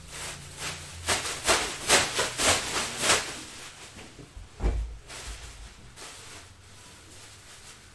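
Trading-card box packaging being handled and torn open: a quick run of rustling, tearing scrapes, then a single dull thump a little past the middle.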